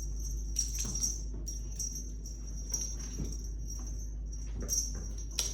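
A small bell jingling in short, irregular shakes about once a second, over a steady low hum.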